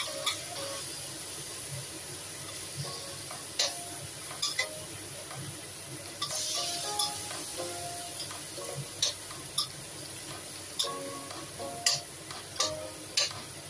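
Meat-wrapped enoki mushrooms sizzling in a stainless steel wok, with a metal ladle scraping through them and clinking sharply against the wok several times as they are stir-fried.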